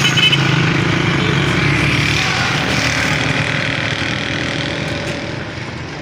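An engine running with a steady hum, strongest for the first two seconds and then gradually fading away.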